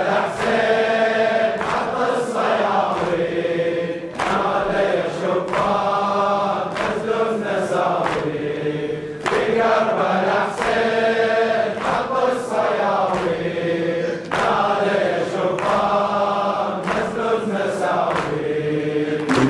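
A congregation chanting the refrain of a Shia latmiya lament together, with steady rhythmic thumps of chest-beating keeping the beat.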